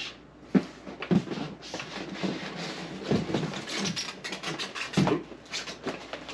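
Cardboard packaging being handled and opened: rubbing, scraping and rustling, with a few sharp knocks and taps. The strongest knocks come about half a second in and about five seconds in.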